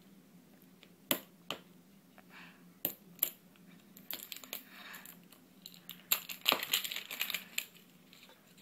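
A Hello Kitty Super Surprise plastic egg being handled and opened by hand: a few scattered sharp clicks of hard plastic, then a denser burst of crinkling and clicking in the second half.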